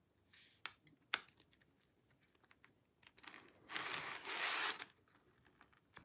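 Plastic model railroad well cars being handled: two sharp plastic clicks early on, light ticks, then about a second and a half of rustling, scraping noise past the middle, and another click near the end.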